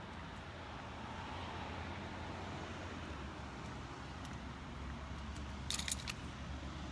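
Steady low rumble of road traffic, with a few brief sharp clicks near the end.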